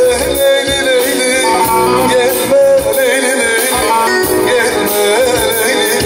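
Turkish Teke-region folk music: a bağlama (long-necked saz) playing an ornamented melody with electronic keyboard accompaniment.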